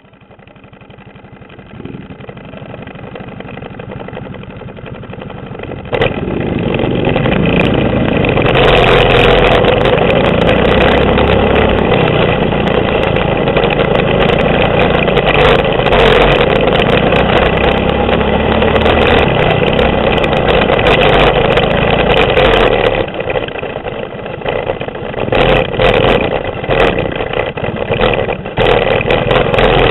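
Mini bike's 6.5 hp clone single-cylinder engine running under throttle, with many sharp clattering knocks. The sound fades in over the first few seconds, gets louder about six seconds in, and surges and dips near the end.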